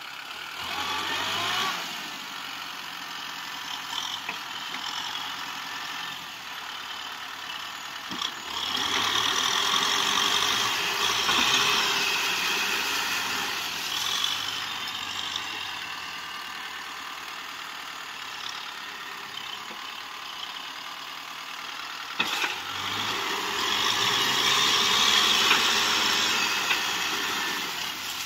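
Kubota M6040SU tractor's diesel engine working under load, rising in pitch at the start and then surging louder twice in long pulls, as the tractor strains stuck in deep mud.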